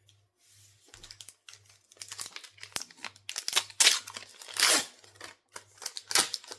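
Foil trading-card pack wrapper crinkling and tearing as it is handled and ripped open, in irregular crackles that grow louder about halfway through.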